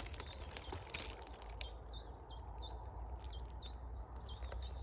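A small songbird calling a quick, even series of short, high notes that each drop in pitch, about four a second, starting about a second and a half in. Faint clicks come before it, over a steady low rumble.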